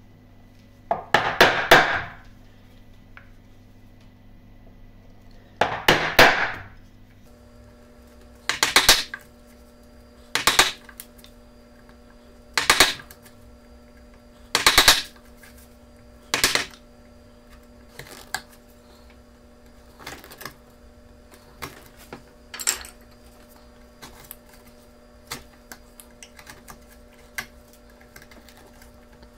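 Steel bench chisel being struck down into pine, chopping out a small recess: groups of sharp blows every two seconds or so, loudest in the first half. After that come lighter clicks as the chisel pares out wood chips.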